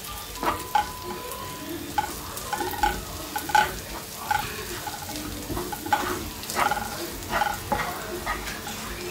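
Spatula stirring onions and ground spices frying in a frying pan: a steady sizzle under irregular scrapes and clinks of the spatula against the pan. The chilli, coriander and turmeric powders are being fried into the onion masala.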